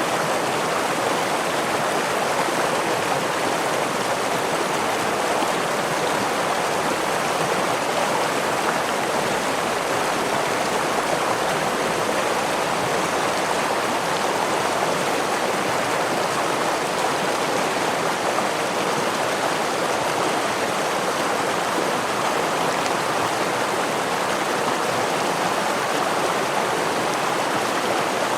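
Flowing stream and small waterfall, a steady, even rush of water with no breaks.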